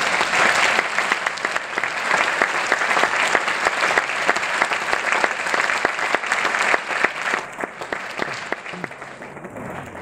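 Audience applauding, a dense patter of many hands clapping that fades over the last few seconds.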